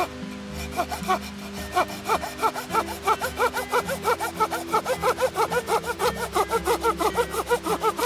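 A hand saw cutting firewood with quick back-and-forth strokes. It starts about a second in and settles into a steady rhythm of roughly three strokes a second.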